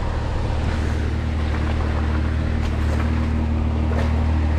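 Jeep engine running at a steady speed, a low, even hum, with a few faint clicks over it.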